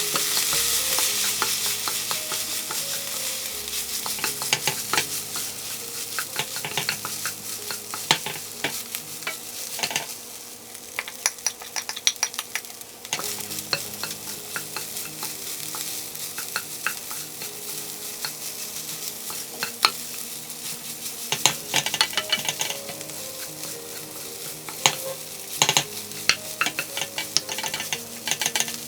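Fried rice sizzling in an oiled frying pan while a spatula stirs and tosses it, with many sharp clicks of the spatula striking the pan. The sizzle is loudest at the start.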